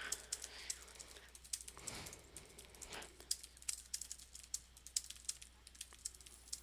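Fast typing on a computer keyboard during a speed-typing test: a quick, uneven stream of light key clicks, at a pace of about 140 words per minute.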